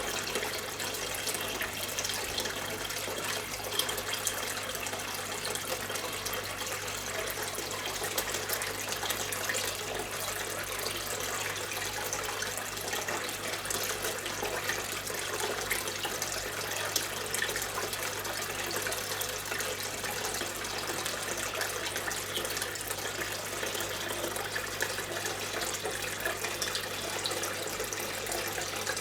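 Small terracotta waterfall fountain running: water trickling and splashing steadily over stone, with a steady low hum underneath.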